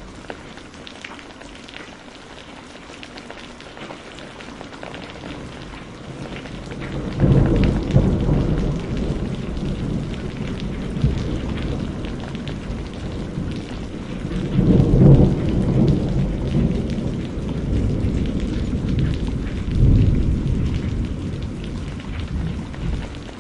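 Steady rain falling. About seven seconds in, rolling thunder begins: a deep rumble that swells and fades, with three loud peaks.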